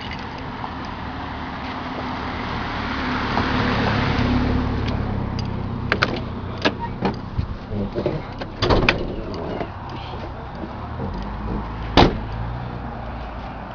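A 2000 Camaro Z28's LS1 V8 idling through stock manifolds, no catalytic converters and an SLP Loudmouth II exhaust, with a steady low drone that swells for a couple of seconds. Several clicks and knocks come around the middle, and a single sharp click comes near the end.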